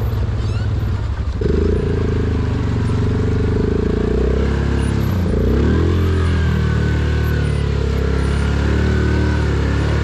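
Yamaha Grizzly 700 ATV's single-cylinder engine running while wading through a shallow river, picking up revs about a second and a half in, then dropping and revving back up around five seconds in before holding steady.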